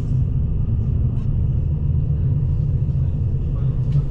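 Passenger train running at speed, heard inside the carriage as a steady low rumble of wheels on rails, with a few faint ticks.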